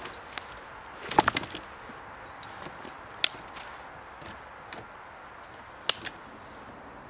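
Dry wooden sticks knocking and clattering against each other as a bundle of branches is handled and laid down. There is a quick cluster of knocks about a second in, then single sharp knocks around three and six seconds.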